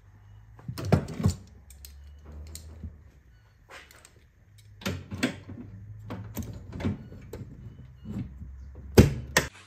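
Irregular clunks and knocks of parts being handled and clamped on a workbench, loudest about a second in and near the end, over a low steady hum that cuts off suddenly near the end.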